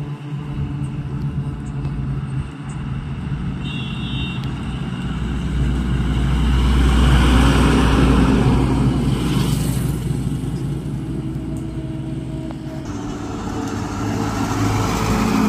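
Goods trucks and a van passing close by on a road: engines running with tyre noise. The loudest pass, a heavily loaded lorry going right past, swells and fades about six to ten seconds in, and another truck approaches near the end.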